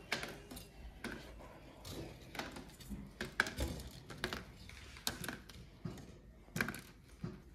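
Crisp, hollow air-fried pani puri shells tapping and clicking as they are picked out of an air fryer basket and set down on a tray: a dozen or so light, irregular ticks.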